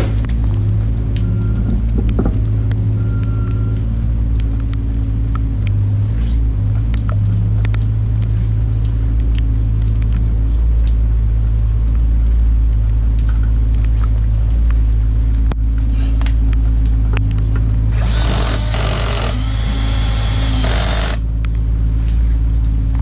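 A steady low hum, and about eighteen seconds in a power impact wrench runs for about three seconds, spinning a wheel bolt on as the new wheel is fitted.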